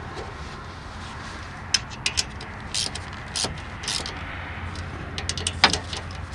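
Irregular metallic clicks and clinks of a ratchet and socket tightening the two mounting screws of a diesel engine's shut-off solenoid, over a steady low hum.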